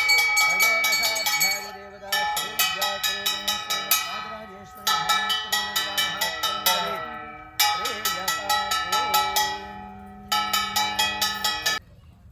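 Hand-held puja bell (ghanta) rung rapidly in bursts of a few seconds, about six strikes a second with a bright ringing tone. The ringing stops abruptly near the end.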